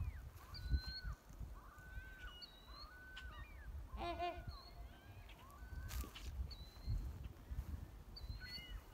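Waterfowl calling repeatedly: short calls throughout, with one louder honk about four seconds in. Wind rumbles on the microphone.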